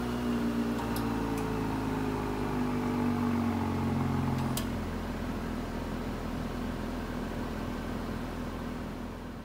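Turbocharged six-cylinder petrol SUV engine idling through its exhaust shortly after a cold start: a steady hum with a few faint ticks, fading near the end.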